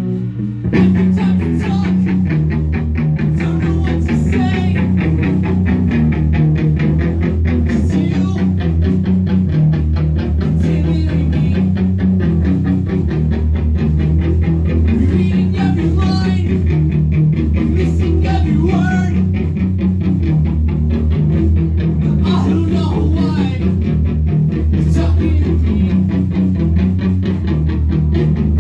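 Live rock band playing loud and without a break: distorted electric guitar, bass guitar and drum kit, with the full band coming in about a second in.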